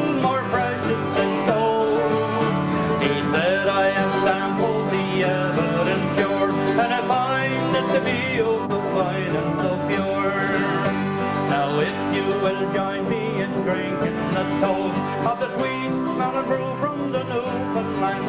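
Acoustic guitars strumming under a mandolin in an instrumental break between verses of a folk song, with a lively plucked melody on top.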